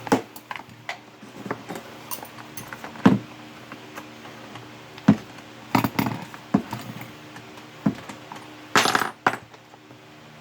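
Scattered metallic clinks and knocks of hand tools and metal parts being handled while copper pipe is clamped and squeezed flat, with a short clattering cluster near the end.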